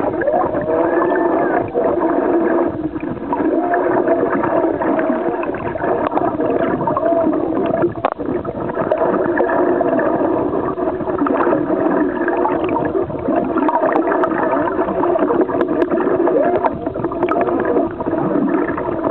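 Humpback whale song heard underwater: many overlapping moans and squeals that rise and fall in pitch, dense and continuous.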